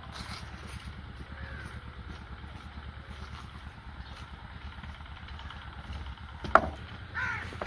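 Outdoor ambience: a steady low engine rumble, a single sharp knock about six and a half seconds in, and a crow cawing once near the end.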